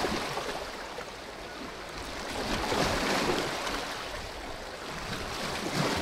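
Small sea waves washing in over shoreline boulders, the surf swelling and ebbing, loudest about three seconds in.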